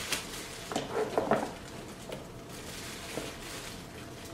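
Plastic desk-fan parts and packaging being handled: rustling and a few light knocks, busiest in the first second and a half, then fainter.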